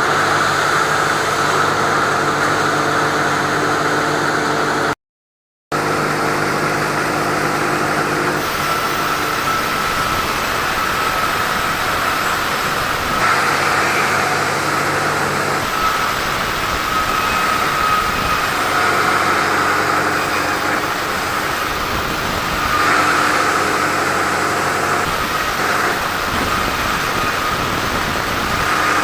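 Sawmill machinery running steadily as teak logs are sawn: an engine's hum under a high, slightly wavering whine from the saw. The sound cuts out completely for under a second about five seconds in.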